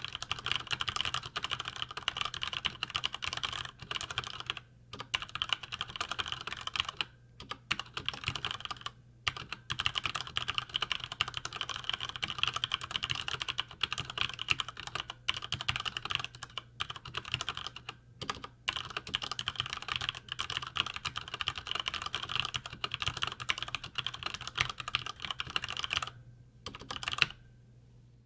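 Continuous fast typing on a Cherry MX Board 5.0 mechanical keyboard with Cherry MX Red linear switches: rapid key clacks with a few brief pauses, slowing to a few last keystrokes near the end.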